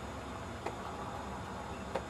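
Steady low rumble and hiss of a passing inland motor cargo ship under way, with two faint clicks, one just after halfway and one near the end.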